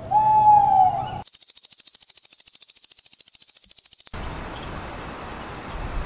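An owl call: one clear, slightly falling hoot lasting about a second. It is followed by a rapid high-pitched insect trill pulsing about thirteen times a second, which cuts off about four seconds in and gives way to a steady hiss.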